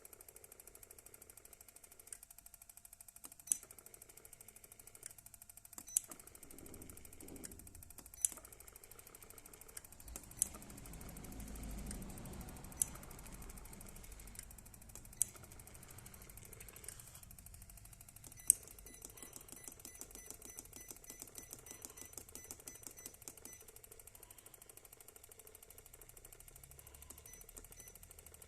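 Keys on a Hammer treadmill console pressed one at a time during a post-repair key test, each press a single sharp click every two seconds or so. About ten seconds in, a low hum swells and fades; from about eighteen seconds a fast run of small ticks follows for several seconds.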